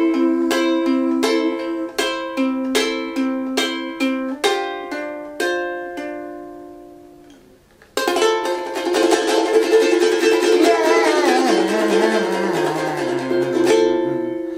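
Ukulele played fingerstyle, picking an arpeggio through F, G7 and Am with the first string held at the third fret, at about two notes a second, the last notes fading out. About eight seconds in, a final Fmaj7 chord is struck and left ringing, its notes wavering.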